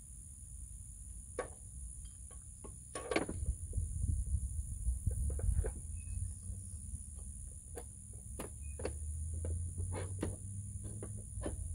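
Scattered light clicks and knocks from hands working at an ATV's rear hitch, over a steady high insect buzz and a low rumble that swells and fades.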